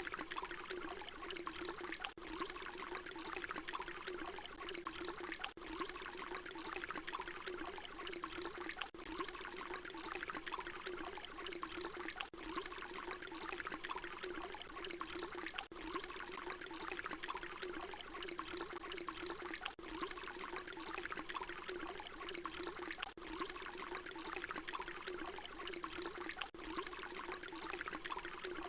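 Water pouring in a steady, splashy stream, a short recording looped over and over, with a brief dip in the sound about every three and a half seconds where the loop restarts.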